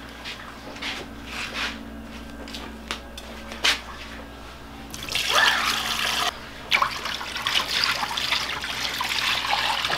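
Starchy water from grated cassava poured out of an aluminium pot into a sink, splashing steadily from about halfway in with a brief break. The liquid is being poured off to leave the settled tapioca starch (goma) in the pot. A few light knocks of the pot being handled come before the pour.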